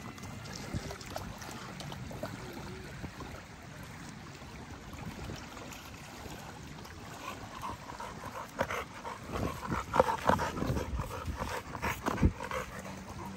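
An XL pit bull-type dog close by, whimpering in short bursts over the second half.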